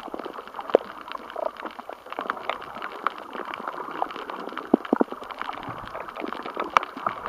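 Underwater sound on a coral reef recorded by the camera underwater: a steady watery hiss with irregular sharp clicks and pops scattered through it, a few of them louder.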